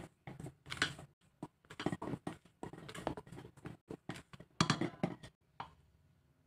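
Spatula stirring dry flour, cocoa and icing sugar in a stainless steel bowl: irregular scrapes and knocks against the metal, dying away about a second before the end.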